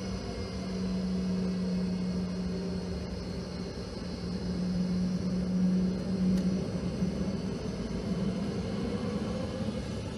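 Boeing 717's rear-mounted Rolls-Royce BR715 jet engines running at low taxi power, heard inside the cabin as a steady hum. A held tone in the hum wavers and breaks up about seven seconds in.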